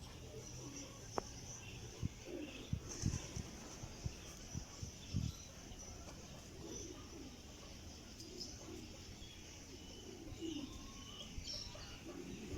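Birds calling: low, repeated cooing calls with scattered higher chirps, and a few soft low thumps about two to five seconds in.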